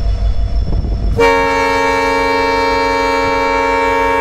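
Low rumble of a waiting train, then about a second in a locomotive horn starts one long, steady blast of several tones sounding together, still going at the end.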